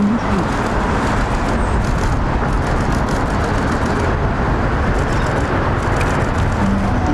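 Steady, even rumble of vehicle noise, with no clear rhythm or pitch.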